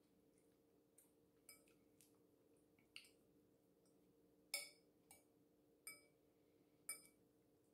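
A metal fork clinks faintly against a glass mixing bowl while twirling and scooping fettuccine, a handful of light separate clicks, the clearest about four and a half seconds in.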